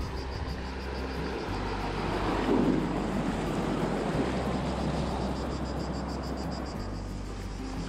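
River water rushing and splashing around an inflatable kayak as it runs down a small cascade, loudest about two to three seconds in.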